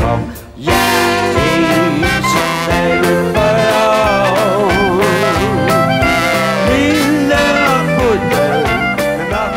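Instrumental swing-style band music with brass playing a wavering melody over a steady accompaniment. There is a brief drop in loudness about half a second in, then the band plays on.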